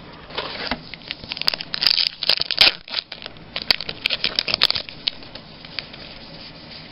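Baseball trading cards being flicked and slid through by hand, card stock snapping and rustling against card stock in a quick run of papery clicks. It is busiest from about half a second to five seconds in, loudest around two to three seconds, then dies down to a faint rustle.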